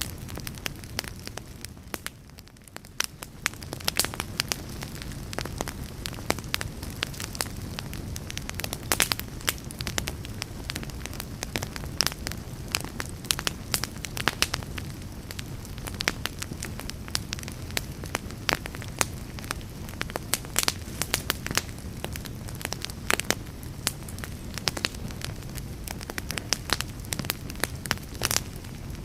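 Log fire crackling, with frequent irregular sharp pops and snaps over a low steady rumble of burning wood. It dips briefly quieter about two seconds in.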